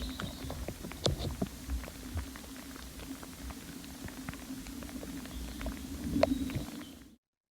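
Sound recording made from moss: a dense crackling of small clicks and ticks over a steady low hum, with a few faint squeaky chirps, cutting off suddenly near the end.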